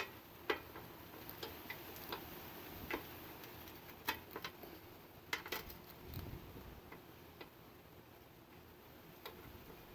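Scattered light clicks and taps, irregularly spaced about a second apart, with one dull low thump about six seconds in: hands working a ratchet tie-down strap and the compressed motorcycle shock to secure it.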